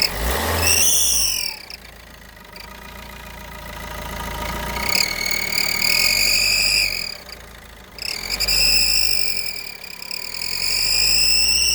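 Opel Astra H 1.3 CDTI four-cylinder turbodiesel blipped three times under light throttle. Each blip brings up a high whistle from under the hood that rises and falls with engine speed. The whistle persists with the alternator belt removed, so it is not coming from the belt or alternator.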